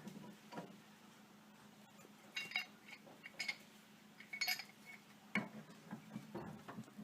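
Plumber's pliers clinking against the metal fittings of a water pressure regulator as its union nuts are tightened: a few sharp, ringing clinks in the middle, then a duller knock and smaller clicks near the end.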